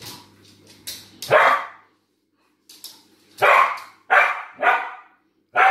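Dog barking: one bark about a second in, then four more in quick succession from about three and a half seconds in.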